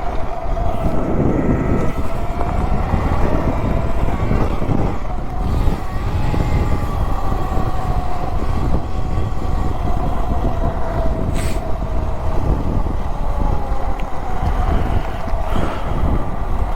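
72 V Talaria Sting electric dirt bike riding: a thin motor whine whose pitch slowly rises and falls with speed, over heavy wind rumble on the microphone.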